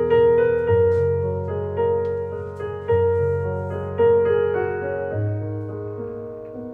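Background piano music: gentle chords, a new one struck about every second and each fading away.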